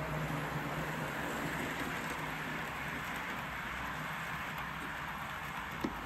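Model A4 locomotive and its coaches rolling along the track, a steady rushing rumble of wheels on rail, with a single click near the end.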